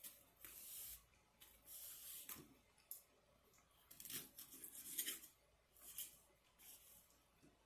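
Faint close-miked eating sounds from a plate of lasagna: about seven short scraping, squelching bursts with a sharp click about three seconds in, like a fork working through the lasagna and tapping the plate.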